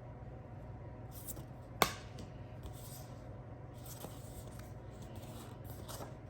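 Board game box and components being handled: short scratchy rustles of cardboard and packaging, with one sharp click about two seconds in.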